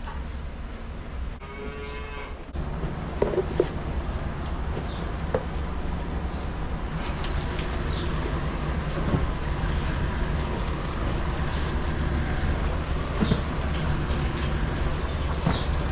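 Dairy cows mooing in the barn over a steady low machine hum that comes on about two and a half seconds in, with a few scattered knocks.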